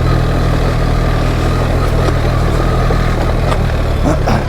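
BMW R 1300 GS boxer-twin engine running at a steady, even pace as the motorcycle is ridden along.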